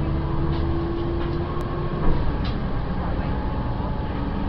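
City bus's diesel engine and road noise heard from inside the passenger cabin while it drives: a steady low drone whose engine tones shift in pitch about halfway through, with a light bump about two seconds in.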